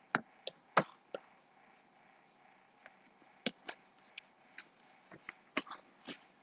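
Faint, irregular clicks and short crackles, about a dozen, over quiet room tone: the audio of a lagging live online broadcast breaking up.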